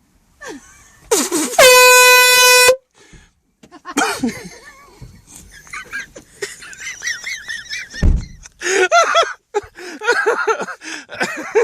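An air horn blasts once, loud and steady for about a second, starting a little after a second in. Excited voices follow, with a low thump partway through.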